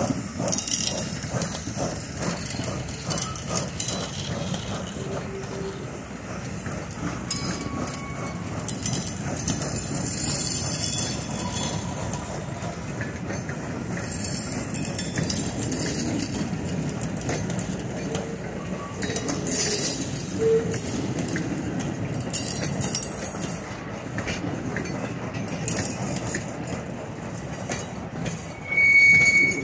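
Railroad train rolling past, its wheels clicking over the rails with a steady rumble. A short, loud, high tone sounds near the end.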